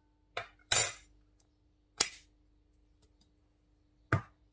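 Four short knocks and clicks as a metal spoon and a plastic tub of baking powder are handled and set down on a kitchen counter beside a glass mixing bowl.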